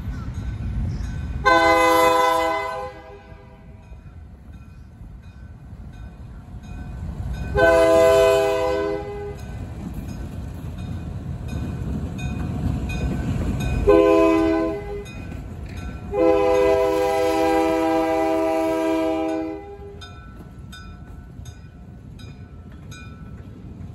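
Diesel freight locomotive's air horn sounding the grade-crossing signal: two long blasts, a short one, then a final long blast, over the low rumble of the locomotive and train rolling past. A crossing bell rings faintly near the end.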